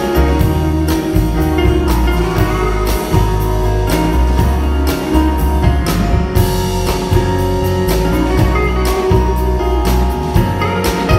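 Live band playing an instrumental passage: acoustic and electric guitars over bass and drums.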